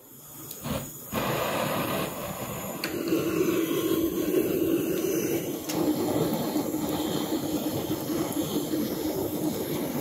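Handheld gas torch burning with a steady rushing hiss as its flame is held against lumps of charcoal to light them. The flame noise comes on about a second in and stays steady.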